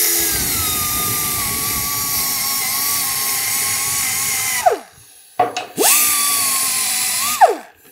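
Right-angle air die grinder with a wire end brush stripping paint from a cast iron hand wheel: a steady high whine with air hiss. It winds down about four and a half seconds in, spins up again about a second later, runs for under two seconds and winds down again.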